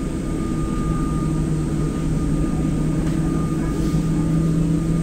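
Steady mechanical drone inside a Boeing 747-8 cabin on the ground, with a low hum and a fainter high whine. The hum steadies and grows slightly louder about two seconds in.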